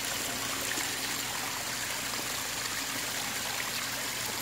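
Steady trickle of running water in the koi's pool, with a faint low hum underneath.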